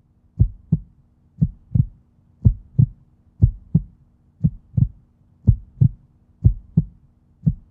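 Heartbeat: a low double thump, lub-dub, about once a second, over a faint steady hum.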